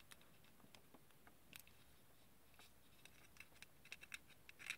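Faint scratching and small ticks of fingertips pressing and rubbing a sticker onto a small plastic model plane, the ticks coming more often in the last second or two.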